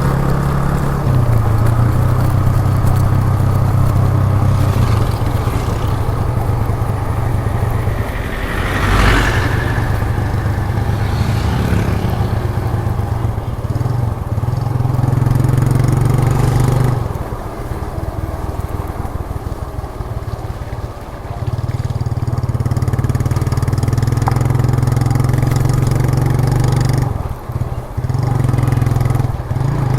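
1998 Suzuki GN125's single-cylinder four-stroke engine running under way through its stock exhaust, heard from the rider's seat. It eases off for a few seconds past the middle and dips briefly twice near the end, with a short louder rush of passing traffic about nine seconds in.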